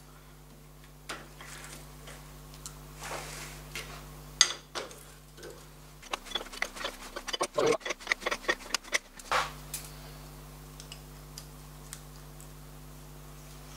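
Metal clicks and clinks as a fitting is seated on a Harrison 190 lathe's spindle nose and its draw bolts are done up with a hand tool: a few separate knocks, then a quick run of clicks lasting about three seconds in the middle, over a faint steady hum.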